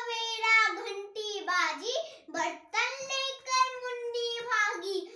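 A young boy singing a song unaccompanied, in long held notes with short breaks between lines.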